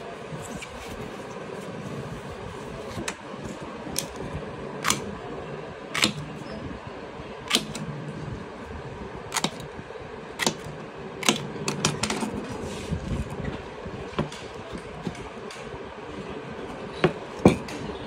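Clear plastic protector sheet being peeled from its backing and pressed onto a cricket bat's blade by hand: scattered sharp crackles and clicks of the film, about fifteen at irregular intervals, over a steady background hum.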